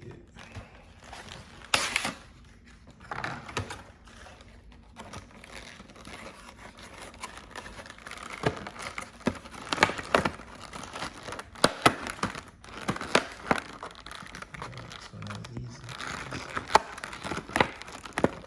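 Crinkling and handling of plastic packaging around a new windshield wiper blade, with scattered sharp plastic clicks.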